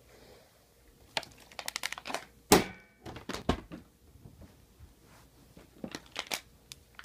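A plastic bottle knocking and clattering against a table as it is handled and tossed: a run of quick clicks, then a loud thunk about two and a half seconds in, and more knocks near the end.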